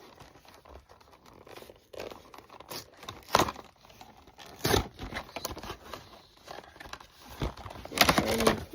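Toy packaging being handled and torn open: several short bursts of tearing and crinkling, the loudest near the end.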